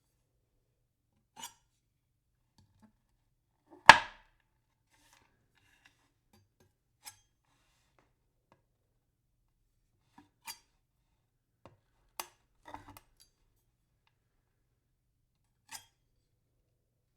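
Knife chopping on a wooden board in single, irregularly spaced strikes: one loud chop about four seconds in and several much softer chops and taps after it, a few bunched together about two-thirds of the way through.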